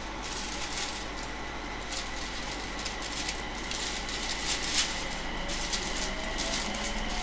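JR East 701 series electric train running, heard from inside the car: a steady rumble and hiss with scattered clicks. Near the end a faint rising whine comes in as the train picks up speed.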